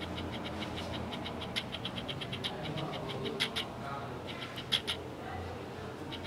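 Runs of short, high-pitched animal chirps, several a second, over a steady low hum.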